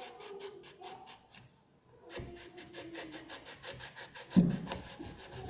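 A kitchen knife sawing through a guava on a stone countertop: rapid, even scratching strokes, with a thud about four and a half seconds in.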